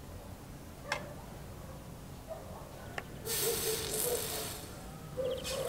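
Two small metal clicks, then about a second of hissing sizzle as a soldering iron tip melts solder and flux onto a small bead and its wire loop.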